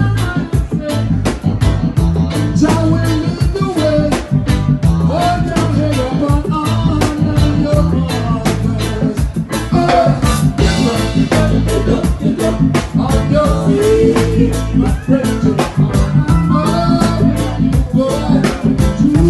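A band playing a ska-reggae song, with a steady driving beat, bass and guitar, and a melodic lead line over it.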